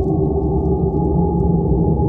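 Steady, deep, muffled ambient drone with a few held notes, unchanging throughout.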